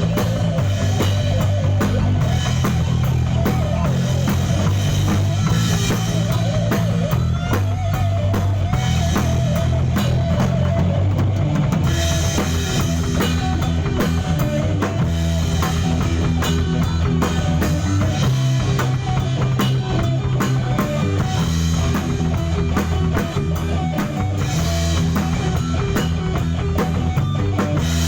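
Rock band playing live in a studio: a drum kit with bass drum and snare hitting steadily over a low bass line that moves between held notes, all continuous at a steady loud level.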